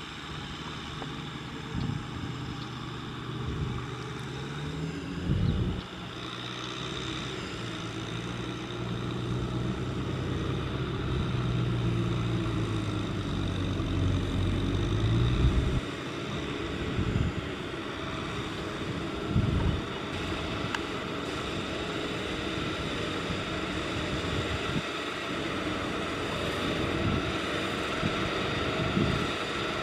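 Kubota M6040SU tractor's diesel engine running under load as it hauls sacks of rice across a field, its pitch rising and falling with the throttle. About halfway through the sound changes to a steadier engine drone from a Kubota combine harvester working the field.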